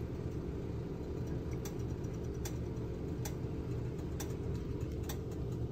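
Cherry tomatoes cooking in oil and a little water in a steel pot, spitting with short sharp pops about once a second over a steady low rumble.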